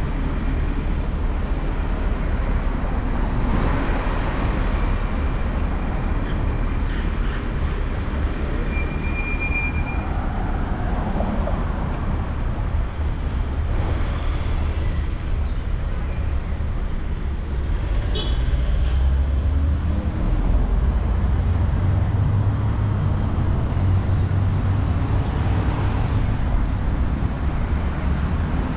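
Steady road traffic noise from a busy city avenue: a continuous rumble of passing cars. There is a short high squeak about nine seconds in.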